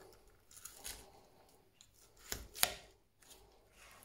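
Knife carving a roast pheasant on a wooden board: short slicing strokes through the crisp skin and breast meat, with two sharp clicks in quick succession a little past halfway.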